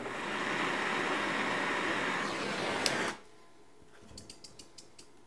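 Metal lathe running with a steady hiss as a piston is polished to fit the cylinder, cutting off suddenly about three seconds in. Then faint light clicks as the Manson hot-air engine's flywheel is flicked by hand.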